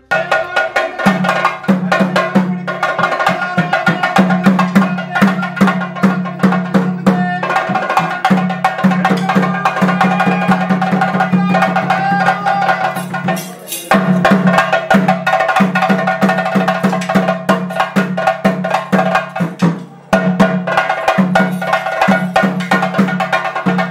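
Traditional ritual music for a bhuta kola: fast drumming with sharp, clicking strokes under a sustained low tone and a wavering melody. It starts abruptly, and it drops out briefly twice.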